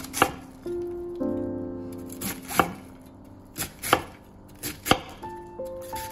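A knife chopping on a cutting board in single, unhurried strokes about a second or two apart, several of them with a lighter tap just before. Soft background music with sustained keyboard notes runs underneath.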